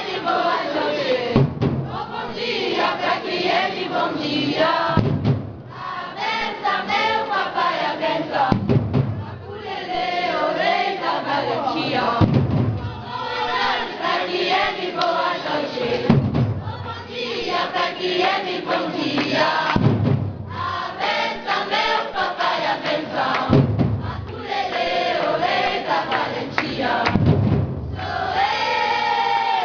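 Group singing of a maculelê song with a deep drum hit about every three and a half seconds and many sharp wooden clacks of maculelê sticks struck together.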